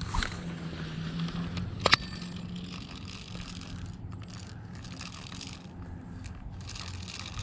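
Fishing reel being cranked in a steady whirring retrieve, with one sharp click about two seconds in.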